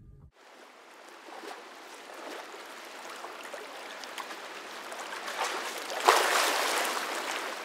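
Water lapping and trickling, growing slowly louder, with a sudden louder rush of water about six seconds in.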